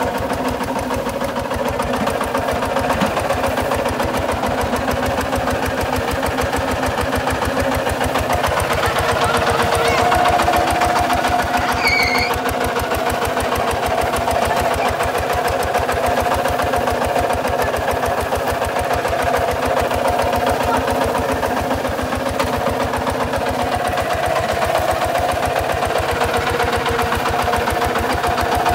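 Kubota RT 140 DI walking tractor's single-cylinder diesel engine running steadily under load as the tractor is driven through dry field soil, a continuous even chug of firing pulses.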